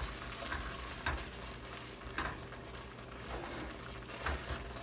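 Wooden spoon stirring and scraping a thick coconut and sweet potato dulce around an aluminium caldero, in irregular strokes about once a second. The mixture has absorbed all its milk and is nearly dry, so it is being stirred constantly to keep it off the bottom of the pot.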